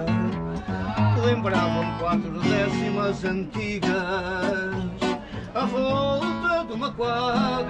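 A man singing with vibrato to his own strummed classical guitar.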